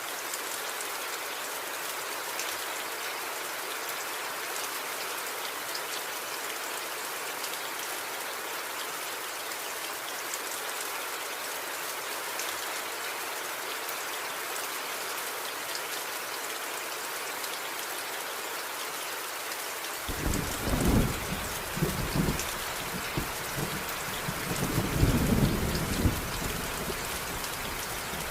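Steady heavy rain hissing, with a rolling thunder clap starting about two-thirds of the way in that rumbles in several loud surges before fading near the end.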